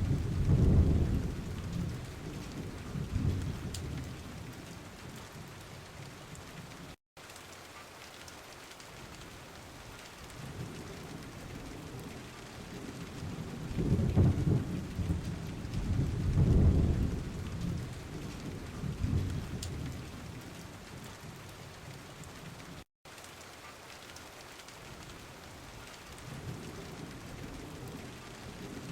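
Steady rainfall with rolling thunder that swells and fades several times, loudest around the middle. The recording drops out for an instant twice.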